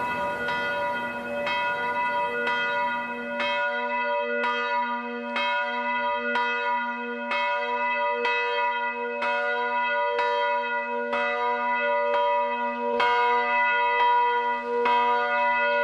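Church bells swinging on their wooden yokes and ringing a peal, with a stroke about once a second and each stroke ringing on over a steady low hum.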